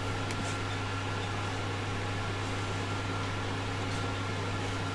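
Steady low hum and fan-like hiss of background noise, with a few faint clicks as printed plastic parts are handled.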